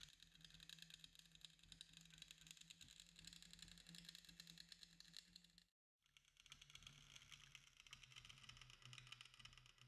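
Near silence: a faint steady crackle over a low hum, cutting out completely for a moment around the middle.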